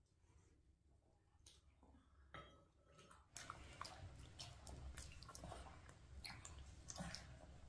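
People eating: faint chewing with small clicks of cutlery and dishes, growing louder and busier about three seconds in.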